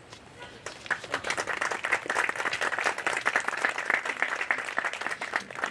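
Audience applauding: a dense patter of hand claps that starts about a second in and stops near the end.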